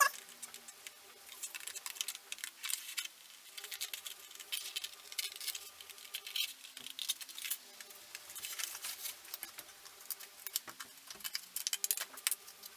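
Scissors cutting through thin cardboard: runs of quick, crisp snips in bursts of a second or two, with short pauses between.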